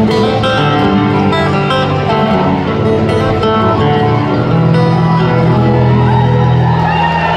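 Live country band playing an instrumental passage on acoustic and electric guitars with fiddle, amplified over a large arena's sound system and recorded from the crowd.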